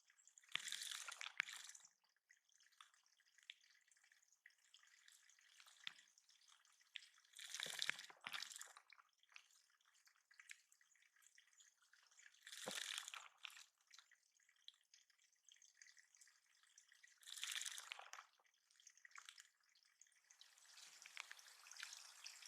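Water in a backyard bird pond splashing in four short bouts, each about a second long, roughly five seconds apart, with a softer, longer stretch of splashing near the end.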